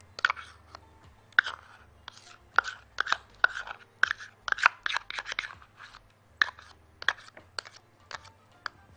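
Metal spoon scraping thick mayonnaise out of a silicone cup into a glass bowl: an irregular run of short scrapes and taps, busiest in the middle.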